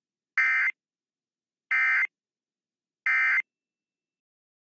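Three short bursts of Emergency Alert System SAME end-of-message data tones, about a second apart: the warbling digital burst that signals the end of the alert message.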